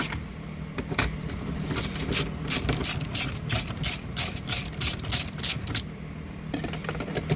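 Ratchet wrench clicking as it backs off the 12 mm nuts that hold the rear shifter bushing plate. There are quick, even clicks, about four a second, for several seconds, then a pause near the end.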